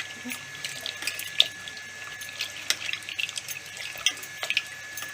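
Hands squeezing and mashing soaked tamarind in water: irregular wet squelches and small splashes, over a faint steady high whine.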